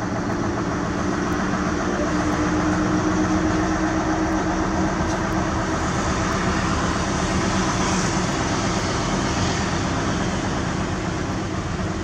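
Heavy diesel engine running steadily: a constant drone with a low hum that holds without change.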